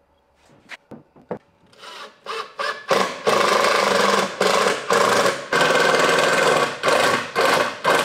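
Cordless drill driving screws into a pine board box, its motor whirring in a run of short stop-start bursts. A few light wooden knocks come before it.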